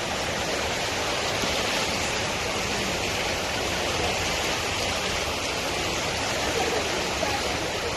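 Floodwater rushing steadily, a continuous noise of fast-flowing water.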